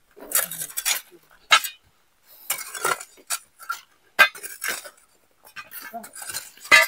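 Pointed steel rock bar and iron hoes striking rock and stony soil: sharp metallic clinks at irregular intervals, the loudest one near the end.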